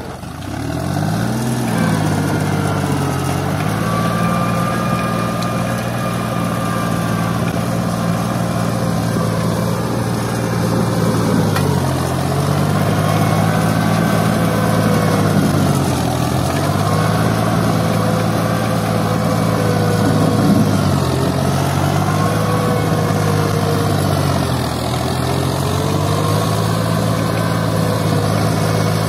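Turbocharged Fiat 480 tractor's three-cylinder diesel engine running under heavy load while pulling a three-furrow plough through hard, dry ground. Its pitch sags and recovers about five times as the engine labours and picks up again.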